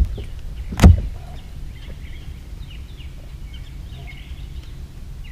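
A sharp thump about a second in, then faint birds chirping over a low steady rumble.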